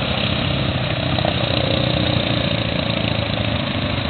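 Suzuki KingQuad ATV engine running steadily as the quad drives through shallow river water, with water splashing from the wheels.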